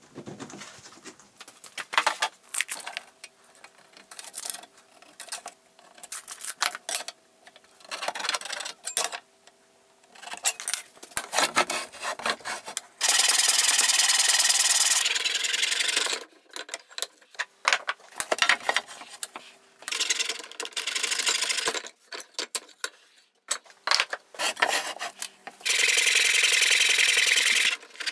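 Hand backsaw in a metal miter box cutting through teak slats, in steady spells of strokes, with clicks and knocks of clamps and wood being set in place in between.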